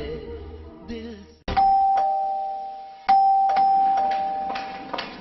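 Two-tone doorbell chime, a high note followed by a lower one, rung twice about a second and a half apart, each note ringing out and slowly fading.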